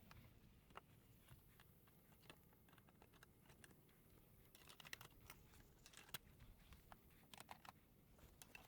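Near silence with faint, scattered clicks and light taps of plastic snap-lock brackets and composite boards being handled and fitted together.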